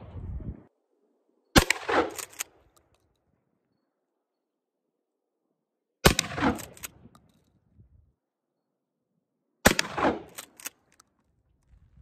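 Three shots from a 12-gauge Mossberg 590A1 pump-action shotgun with a 14-inch barrel, firing 00 buckshot, about four seconds apart. Each shot is followed by a few quick clacks of the pump being worked to chamber the next shell.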